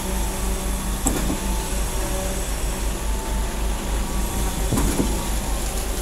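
Junjin truck-mounted concrete pump running steadily while pumping concrete, a continuous engine and pump drone with a low rumble. Two brief knocks come through, about a second in and again about five seconds in.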